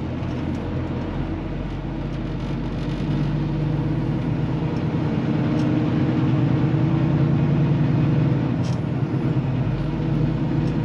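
Semi-truck's diesel engine running, heard from inside the cab, with a steady pitch; it grows louder about three seconds in and eases off near the end.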